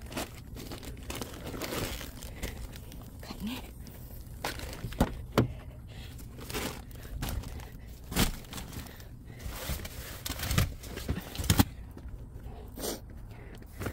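Plastic bags and packaging crinkling and rustling as they are handled and carried, with scattered knocks and clunks throughout.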